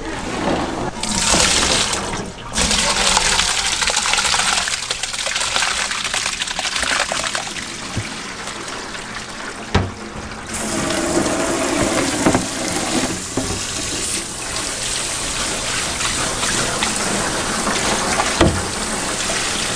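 Water running from a tap and splashing, with a couple of short breaks in the flow.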